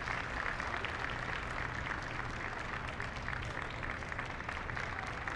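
Crowd applauding: many hands clapping at once in a steady, dense patter.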